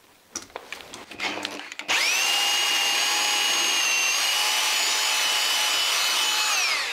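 Rotary hammer drill widening a pilot hole through a wall with a 12 mm bit, in rotation-only mode with no hammer action. A few light knocks come as the bit is set in the hole. About two seconds in, the motor spins up quickly to a steady whine, runs evenly, and winds down with falling pitch near the end.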